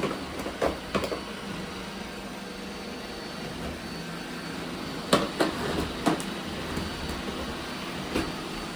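Robot vacuum cleaners running with a steady hum, with a few sharp clicks and knocks near the start and again about five to six seconds in.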